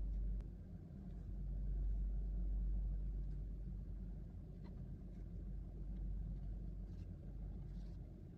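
A few faint light clicks of a small 1/64-scale die-cast model car being handled, over a low steady rumble.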